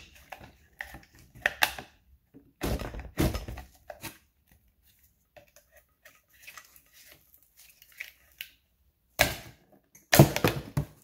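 A flathead screwdriver prying at a distributor rotor that is stuck tight on its shaft: irregular clicks, scrapes and knocks of the steel blade against the plastic rotor and the distributor body. A louder cluster of knocks comes about three seconds in, and another just before the end.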